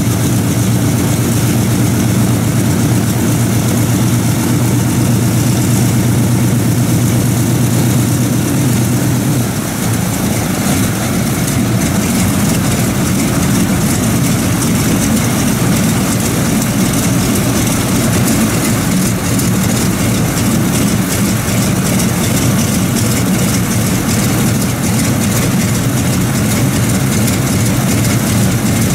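The 18-cylinder Pratt & Whitney R-2800 Double Wasp radial engine of a Republic P-47D Thunderbolt idles steadily with its propeller turning, the aircraft standing still on its chocks. About a third of the way in, the engine note shifts slightly.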